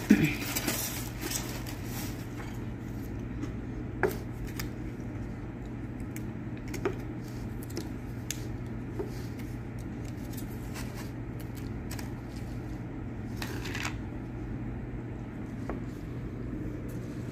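Takeout containers being handled on a table: a foam clamshell box and a paper chili cup, with light scattered clicks and a short crackling burst about three-quarters of the way through as the clear plastic lid is pulled off the cup. A steady low hum runs underneath.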